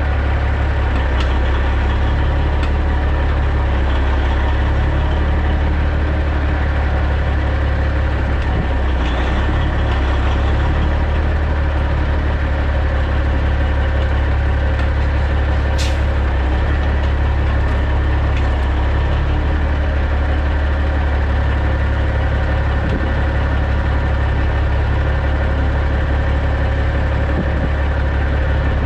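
Caterpillar C15 inline-six diesel of a Peterbilt 379 running steadily at low revs while the truck backs slowly with small steering corrections. A brief click about halfway through.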